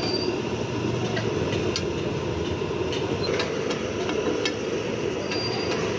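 Busy street-food stall noise: a steady rumble with scattered sharp clicks.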